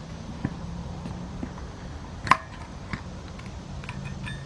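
A few light clicks and one sharper, ringing clink of a small screwdriver working at the thermostat housing, picking out the O-ring seal. A steady low hum runs underneath.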